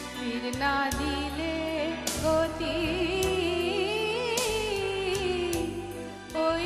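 A woman singing a Bengali song live into a microphone, holding long wavering notes with vibrato over instrumental accompaniment, with a few sharp percussion strikes.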